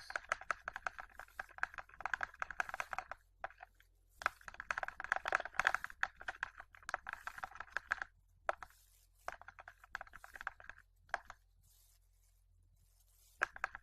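A utensil rapidly stirring and beating a thick shampoo-and-salt slime mixture in a small container: a fast run of clicking, tapping strokes in two long spells of a few seconds each, then shorter bursts with pauses.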